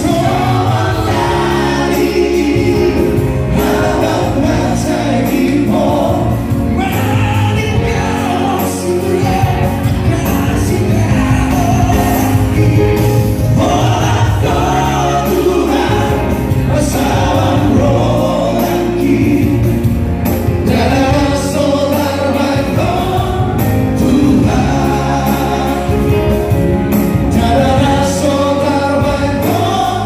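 Male vocal trio singing a song in close harmony through microphones and a PA, with held notes, over accompaniment with a bass line underneath.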